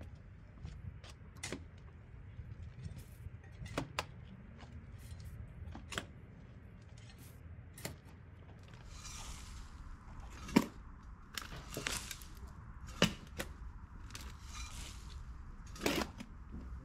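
Hand gardening work in a flower bed: irregular sharp clicks and knocks, one every second or two, with two stretches of rustling plant material in the second half.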